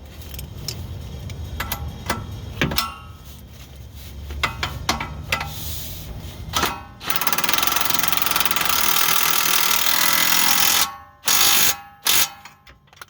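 Tools and metal parts click and clink. Then, about seven seconds in, a power tool runs in a steady, fast rattle for about four seconds, followed by two short bursts, as the nut is run onto the suspension bolt.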